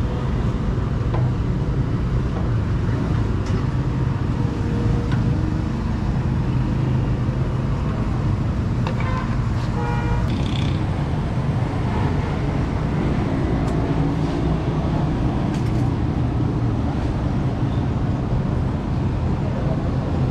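Steady low rumble of vehicle engines and road traffic, with a brief vehicle horn toot about nine seconds in.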